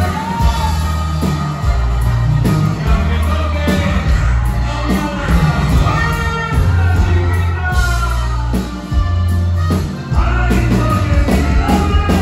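Live norteño band playing loudly, with an accordion over electric bass and drums.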